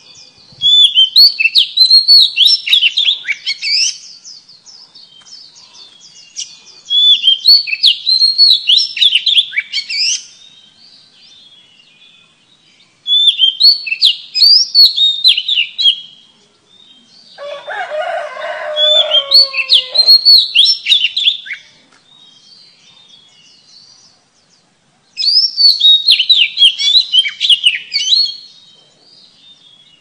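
Oriental magpie-robin singing in five loud bursts of rapid, twisting high whistled notes, each about three seconds long with short pauses between. A lower call sounds underneath the fourth burst.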